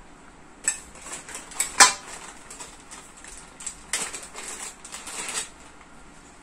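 Handling of plastic packaging: a few sharp clicks and knocks in the first two seconds, the loudest about two seconds in, then a stretch of crinkling as a clear plastic bag is opened to take out a folded reflectorized vest.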